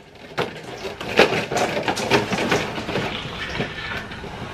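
Crinkling and rustling from cardboard Happy Meal boxes being handled, with many irregular clicks and taps.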